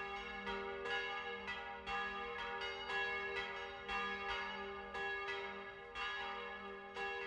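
Church bells pealing, overlapping strikes about two a second, each ringing on over a steady low hum.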